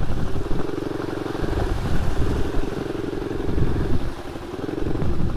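Dirt bike engine running at low trail speed, its note holding, easing off and picking up again a few times as the throttle is worked.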